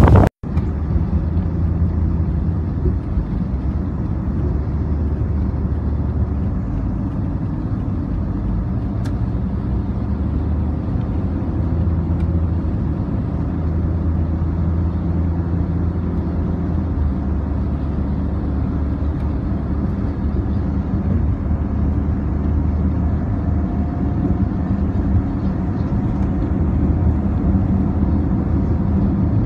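Steady low rumble of car traffic on a road.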